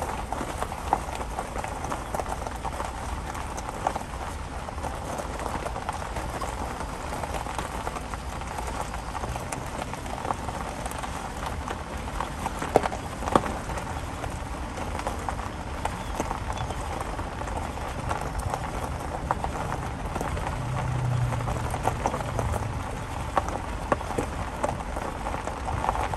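Footsteps crunching on a gravel path at a walking pace, many small irregular crunches, over a low rumble.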